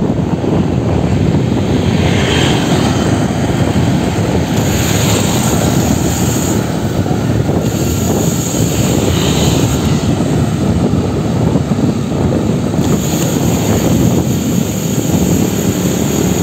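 Steady wind rumble on the microphone of a camera riding on a moving bicycle, with a hiss higher up that comes and goes.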